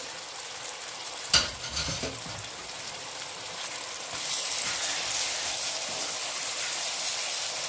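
Lamb kidney pieces sizzling as they fry in a pan, with a steady hiss. There is a single sharp knock about a second and a half in, and the sizzle grows louder from about four seconds in as a wooden spoon stirs them.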